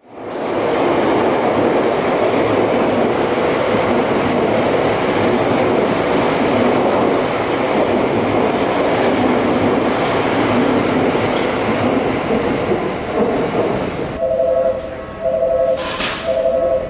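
Tokyu Toyoko Line train running past the station platform: a steady rush of wheel and rail noise that fades out after about thirteen seconds. Then a two-note tone repeats about once a second.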